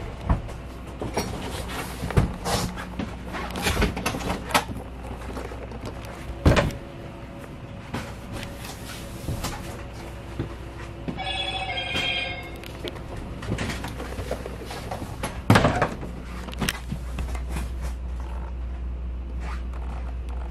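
Scattered knocks and clicks over a steady low hum, with a short trilling electronic ring about eleven seconds in.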